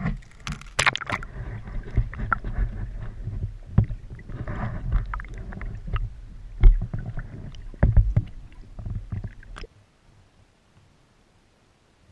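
Water sloshing and gurgling around an underwater camera as it is dipped over the side of a boat beside the hull, with low rumbling and scattered knocks and splashes. The sound cuts off suddenly about ten seconds in.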